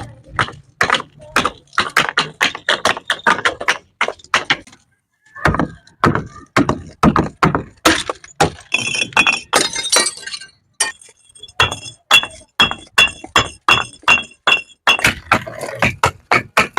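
Glass bottles thrown down stairs: a rapid string of sharp knocks and clinks as they strike the steps, with a burst of shattering glass and ringing high glass notes in the middle. A brief pause comes about five seconds in.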